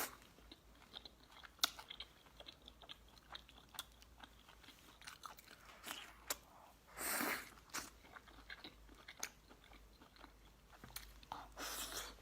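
A person chewing and eating close to the microphone: many small wet mouth clicks and smacks, with a louder noisy burst about seven seconds in and another near the end.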